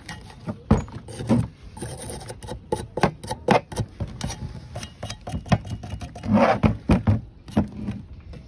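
Brake caliper parts being scrubbed clean by hand to get caked-on dirt off: irregular rubbing and scraping strokes mixed with sharp clicks of the metal parts being handled.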